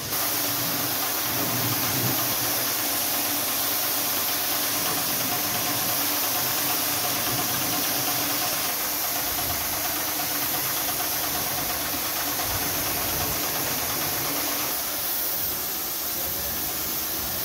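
Small petrol engine running steadily, driving a pressure washer, with the hiss of the water jet spraying.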